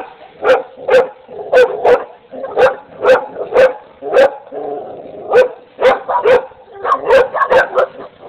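American Pit Bull Terriers barking in a rapid run of barks, about two a second, with a pause of about a second near the middle.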